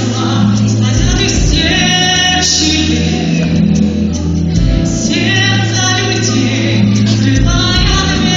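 A song performed to a backing track: singing over an instrumental accompaniment with long, steady bass notes.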